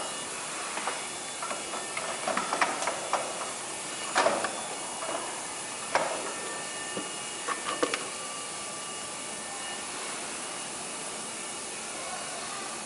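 Scattered metal clicks and knocks as a steel plate cylinder is handled and seated in the holders of a flexo plate mounting machine, over a steady hiss. The knocks fall in the first half; after that only the hiss remains.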